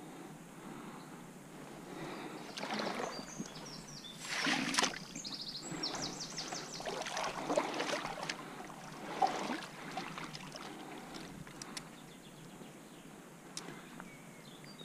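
Water splashing and sloshing in irregular bursts as a hooked perch, well over a pound, is drawn to the bank and landed, the loudest splash about four seconds in.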